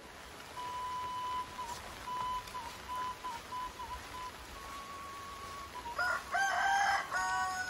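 A rooster crows once about six seconds in, a rough start followed by a long held note that drops at the end, over a light steady hiss of rain. A thin, steady high note with small dips sounds faintly before the crow.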